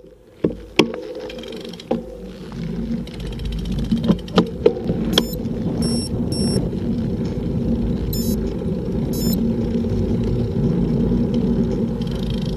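Wind and road rumble on a bicycle-mounted action camera's microphone as the bike rolls over asphalt, building up over the first couple of seconds and then holding steady. Several sharp clicks and knocks come in the first five seconds.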